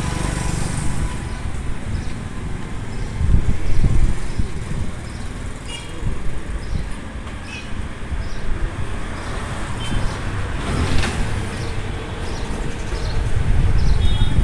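Street traffic on a busy town road: motorbikes and small vehicles passing, a steady low rumble that swells about four seconds in and again near the end.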